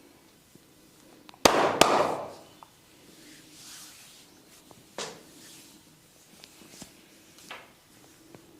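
Hands-on massage sounds: two loud, sharp pops in quick succession about one and a half seconds in, then a smaller single pop about five seconds in, with faint rustling and light clicks in between.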